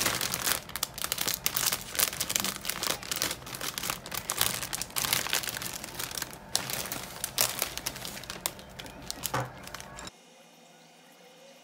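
A plastic bag of popcorn crinkling and crackling as it is handled, a dense run of irregular crinkles that stops abruptly about ten seconds in.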